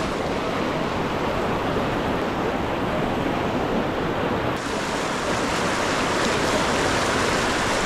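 Steady rushing of stream water, an even hiss with no distinct events.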